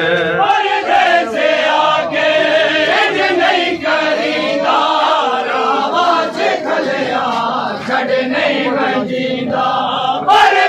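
Crowd of male mourners chanting a Punjabi noha lament together, with the sharp slaps of chest-beating (matam) scattered through the singing.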